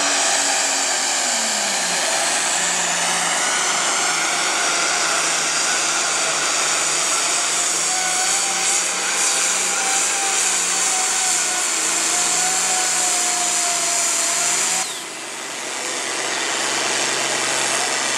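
Farm stock diesel tractor pulling a weight-transfer sled at full throttle, the engine running hard at steady high revs with a high whine over it. About fifteen seconds in, the engine note drops suddenly as the pull ends and the tractor settles to a lower, steadier run.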